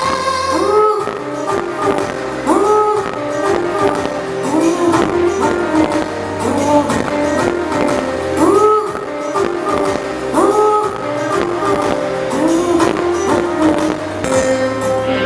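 Recorded music playing loudly for a flash mob dance: a song with a steady beat and a swooping melodic figure that repeats about every two seconds.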